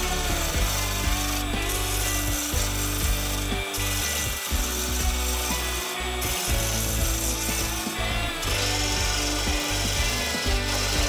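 A wood lathe spinning a spalted hickory blank while a hand-held turning tool cuts it: a rough scraping hiss of wood being cut over the steady hum of the lathe's motor, the cutting sound breaking off briefly several times as the tool lifts and moves.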